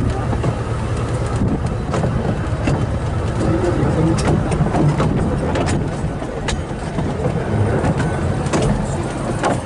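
Open coach of a 2 ft narrow-gauge train riding along the line: a steady rumble of the wheels on the rails, with irregular clicks and knocks from the running gear.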